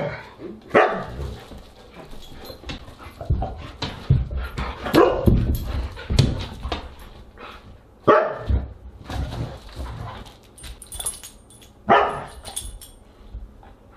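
Siberian huskies barking and yipping in play: a string of short, sharp barks, a second or more apart, with softer whines between them.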